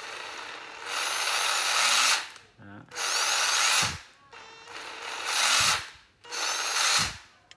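Makita TD131D 14.4 V cordless impact driver running with no load in four trigger pulls, the first and third building up in speed before each run stops abruptly on the electric brake. The seller says this unit's bearing is slightly noisy.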